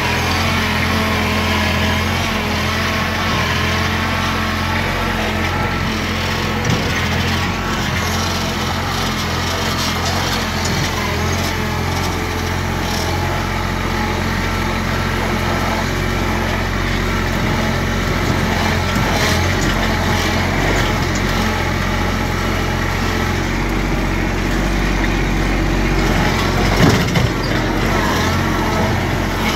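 Compact tractor with a front-end loader driving along a dirt trail, its engine running steadily at an even speed. A few knocks and rattles come near the end as it crosses rough, muddy ground.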